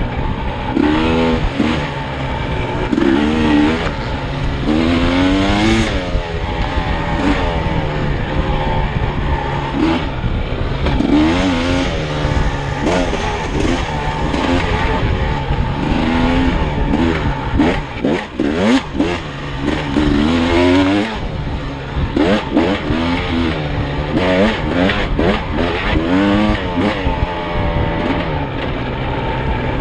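Dirt bike engine being ridden, revving up and dropping back again and again as the throttle opens and closes, heard close from the rider's helmet. A cluster of sharp knocks comes about two-thirds of the way through.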